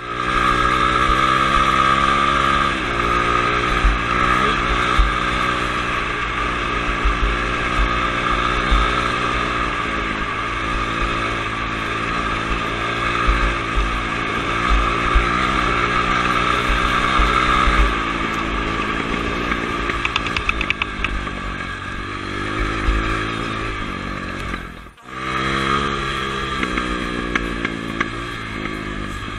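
Dirt bike engine running while riding, its pitch rising and falling with the throttle and holding steady for long stretches, with wind buffeting the microphone. Near the end the sound cuts out for a moment and picks up again.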